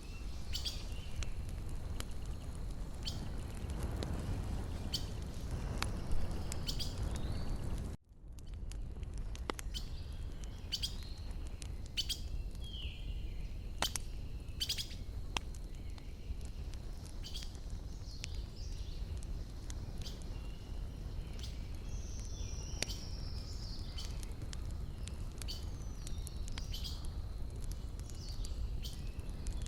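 Wood campfire crackling with sharp pops throughout over a low steady rumble, with birds chirping now and then. The whole sound briefly drops out about eight seconds in.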